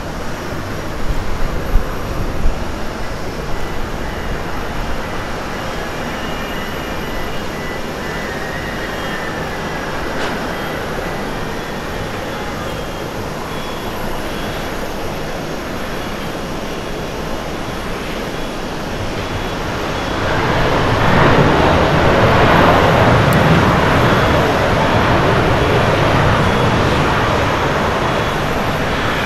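Jet engines of an AIRDO Boeing 767-300ER landing and rolling out on the runway: a steady jet rush and rumble that swells sharply about twenty seconds in and stays loud.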